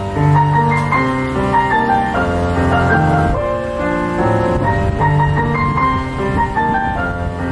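Grand piano being played: a melody of quicker higher notes over long-held bass notes.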